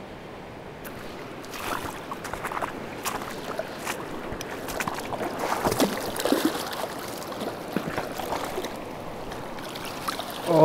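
Irregular splashes and knocks in shallow river water over stones as a hooked chinook salmon is brought in and landed, over the steady rush of the river. The splashing starts about a second and a half in.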